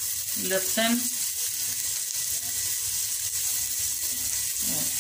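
Chopped onion frying in oil in a stainless-steel pot: a steady sizzling hiss.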